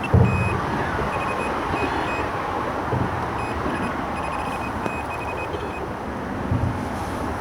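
Electronic carp bite alarms beeping in irregular runs of short high beeps, stopping about six seconds in, set off by drifting debris snagging the lines. Steady road traffic noise and a few low thumps on the microphone run underneath.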